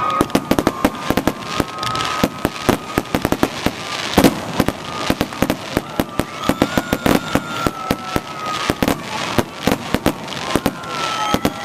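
Fireworks display: aerial shells and crackling stars going off in a rapid, continuous volley of bangs, several a second, with the loudest bang about four seconds in. Faint wavering whistles run under the bangs at times.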